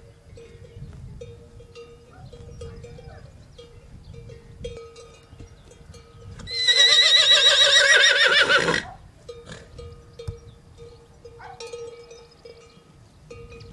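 A horse whinnies once, loudly, about halfway through: a quavering call about two seconds long that drops away at the end. Throughout, a faint bell rings over and over.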